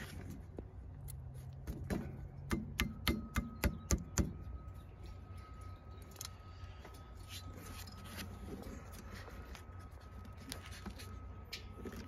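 Hands handling wiring and copper tubing inside a heat pump's outdoor unit: a quick run of light clicks and taps from about two to four seconds in, then softer rustling handling noise over a faint steady hum.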